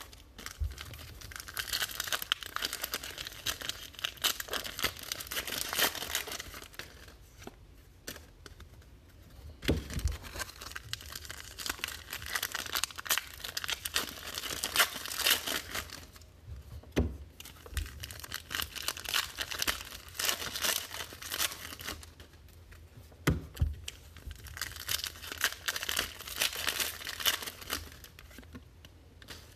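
Trading card pack wrappers being torn open and crinkled in long bursts with short pauses, with a few soft thumps in between.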